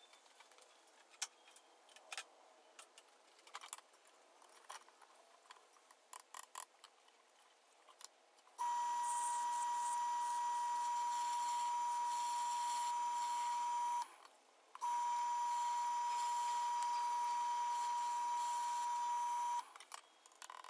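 Light clicks and knocks of hands and tools at a stopped wood lathe. About eight and a half seconds in, the lathe starts running with a steady high whine over a hiss as the bowl blank spins. The sound breaks off briefly near the middle, then runs on and stops shortly before the end.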